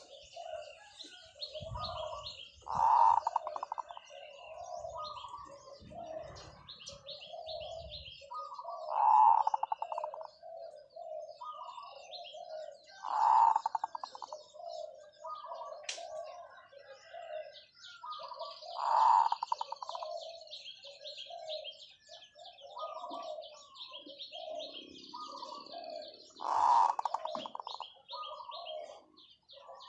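Zebra dove cooing: a loud, long rolling coo about every five seconds, with softer short coos in between. Small birds chirp in the background.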